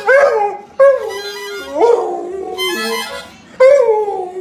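Husky howling and 'talking' in about five drawn-out calls that waver up and down in pitch, some breaking into high yelps.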